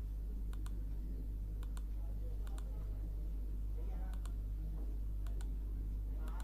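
Computer mouse clicking about once a second, each click a close pair of sharp snaps, as curve points are placed one by one. A steady low electrical hum runs underneath.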